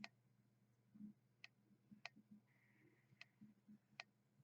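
Near silence with about five faint, sharp clicks, roughly one a second.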